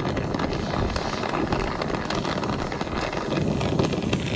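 Air-acetylene torch burning with a steady rushing hiss, its flame held on a cracked furnace flame sensor rod to flow silver braze into the crack.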